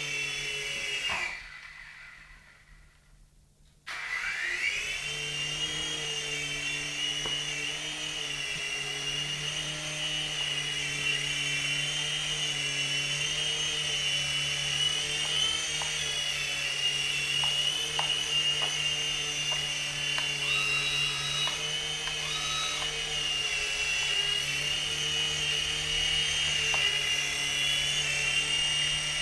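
Electric motors and rotors of a DFD Firewolf F103 micro RC helicopter, a steady high-pitched whine. About a second in the whine dies away to near silence. A few seconds later it comes back abruptly, rising in pitch as the rotors spool up, then holds steady.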